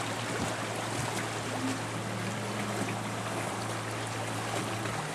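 Steady rush of river water, with a low steady hum underneath.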